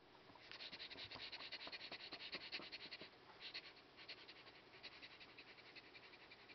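Faint, rapid scratchy crackling of handling noise as the handheld camera is moved and the plush toy's fur brushes close to the microphone. It is busiest in the first half and thins out after about three seconds.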